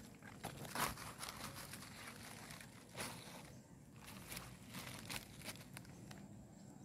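Faint rustling and crinkling of freshly picked mustard greens being handled, with scattered small crackles and snaps of leaves and stems.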